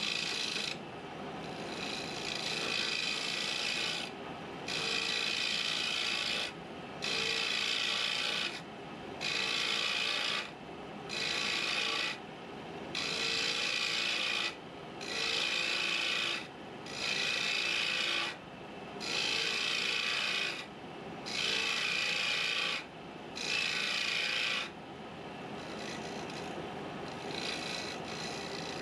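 A turning tool cutting a spinning wooden blank on a wood lathe during rough shaping. It makes about eleven separate cutting passes, each lasting a second or two with short breaks between them. Near the end the cutting turns lighter and steadier, and the lathe runs underneath throughout.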